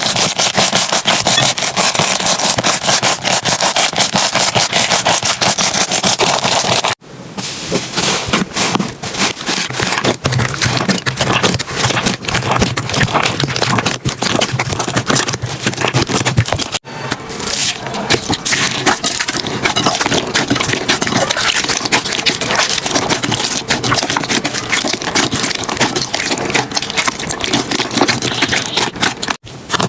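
Slime being squeezed and pressed by hand, with dense crackling and popping. The sound cuts off sharply twice, about seven and about seventeen seconds in, and is quieter after the first break.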